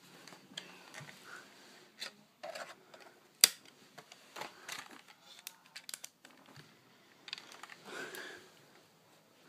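Scattered plastic clicks and taps with fabric rustling from a toy car's remote control being handled on bedding. One sharp click about three and a half seconds in is the loudest.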